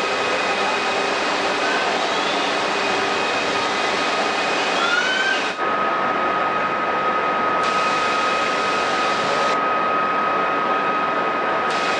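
Tea-processing machinery running, with conveyor belts and rollers making a steady, dense mechanical noise. A few short rising squeaks sound in the first half, and from about halfway a steady high whine runs on.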